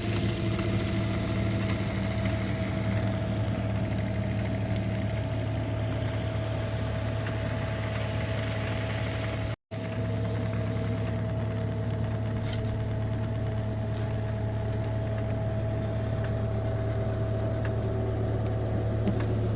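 Engine running steadily at a constant speed, a low even hum with a higher steady tone over it; the sound drops out for an instant about ten seconds in.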